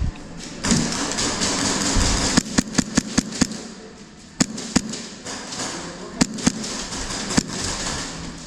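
Airsoft guns firing: sharp snaps, a quick string of about five shots about two and a half seconds in, then scattered single shots.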